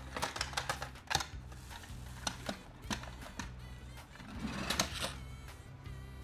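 Die-cast and plastic toy hauler trucks clicking and clattering as they are handled, then a toy truck set down and pushed across a corrugated plastic board, scraping and rolling, about four seconds in. Background music plays underneath.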